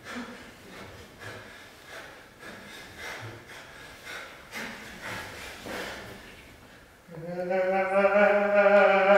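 A performer's breathing: soft, irregular breaths and exhalations. About seven seconds in, a voice begins a loud, long held sung note that slides up slightly at the start and then holds steady.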